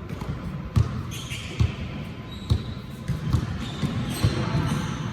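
Basketball being dribbled on a hard court, a thud roughly every second, with a few short high squeaks between bounces.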